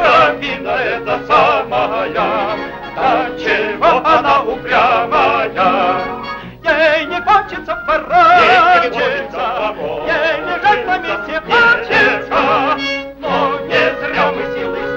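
Orchestral cartoon score with quick, short notes under a wavering vibrato melody. The music briefly thins out about six and a half seconds in and again near thirteen seconds.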